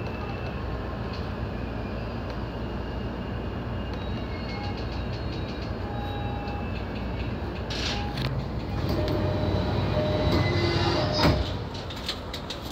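Keihin-Tohoku Line E233-series electric train running along the track, heard from the driver's cab: a steady rumble with scattered clacks. About eight seconds in it grows louder with several thin whining tones and clicks, then drops off sharply near the end to a quieter cab.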